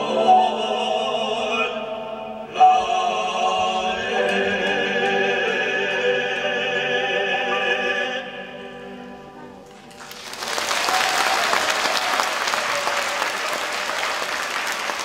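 Mixed choir singing the last phrase of a song and holding a long final chord, which fades out shortly before ten seconds in. Audience applause breaks out and continues to the end.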